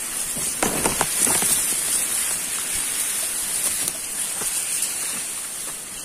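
A hiker's footsteps and the rustle of tall grass brushing against him, a dense run of short crackling strikes that is loudest about a second in. Under it runs a steady high-pitched hiss.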